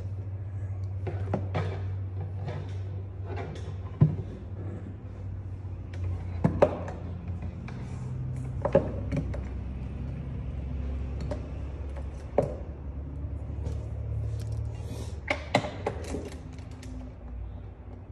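Scattered clicks and knocks of objects being handled close to the microphone, with a few sharper knocks about 4 and 6.5 seconds in, over a steady low hum.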